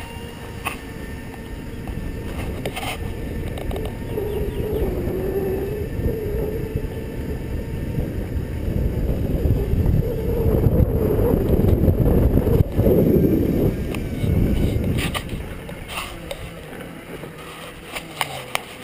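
Segway personal transporter rolling along a paved path, its motor whine wavering in pitch as it goes, over a heavy rumble of wind on the microphone that grows louder in the middle. A few sharp knocks come from bumps in the pavement.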